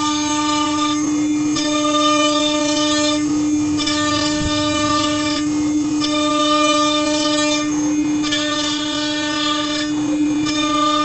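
CNC rotary lathe's router spindle running with a steady whine while its conical bit cuts a spinning wooden post. A harsher, higher buzz from the cutting comes and goes in stretches of a second or two, about six times, as the bit bites into the wood and lets off.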